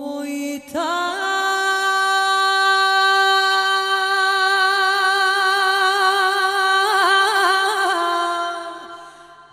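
A woman singing one long, held note of a slow folk song, unaccompanied, with a brief wavering ornament near the end before the note fades away.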